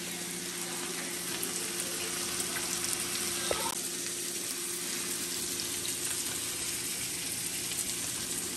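Diced chicken sizzling in oil in a frying pan on an electric stove: a steady frying hiss. A faint low hum runs underneath, and there is one light tap about three and a half seconds in.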